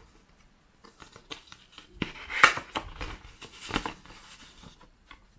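Crisp rustling and scraping of a paper envelope being opened and a stiff card sliding out of it, in uneven strokes. The loudest come about two and a half seconds in and again near four seconds.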